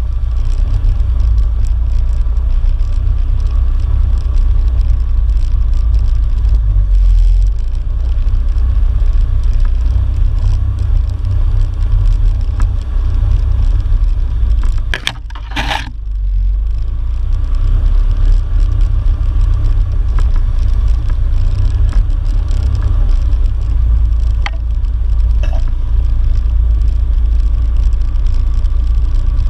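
Off-road vehicle riding a wooded dirt trail, heard from a mounted camera: a steady, heavy low rumble of engine and ride vibration. About halfway through there is a brief sharp knock, as the rumble dips for a moment.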